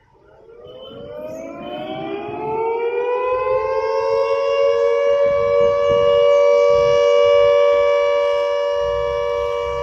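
Civil defense siren winding up. Its pitch rises over about three seconds, then it holds a steady, loud two-note chord.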